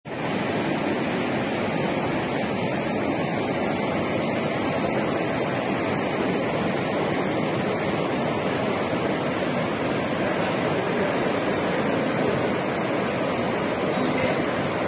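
Floodwater pouring through the open spillway gates of the Salal hydroelectric dam, a steady, unbroken rush of falling water.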